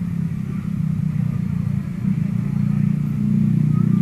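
A steady, low engine rumble, like a motor vehicle idling or running slowly nearby, growing a little louder near the end.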